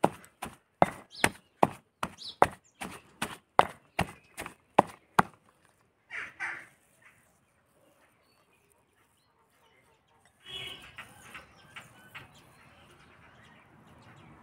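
Wooden pestle pounding soya chunks into a paste in a stone mortar: even, sharp thuds about two and a half a second, which stop about five seconds in. A faint rustle follows near the end.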